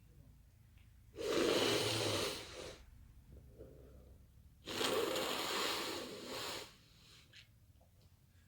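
A person blowing their nose hard twice, each blow a rush of air lasting over a second, with a short sniff between them.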